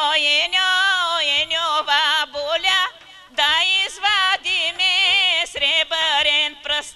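A woman singing a Bulgarian folk song solo, her high voice heavily ornamented with quick wavering turns of pitch. It comes in two phrases with a short break about three seconds in.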